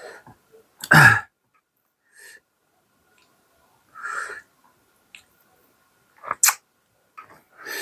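A person eating, making a few short, separate mouth noises with pauses between them. The loudest is about a second in, with another sharp one about two-thirds of the way through.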